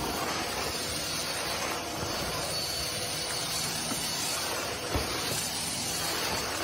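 A steady hissing noise.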